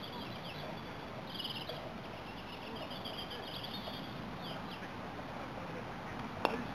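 Outdoor ambience with steady high-pitched chirping throughout, then a single sharp click near the end: a croquet mallet striking a ball.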